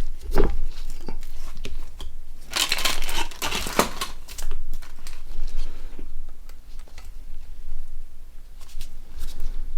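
Small plastic parts of a Nokia 1100 replacement body shell being handled: a crinkling, rustling stretch about two and a half seconds in, with scattered small clicks and taps around it.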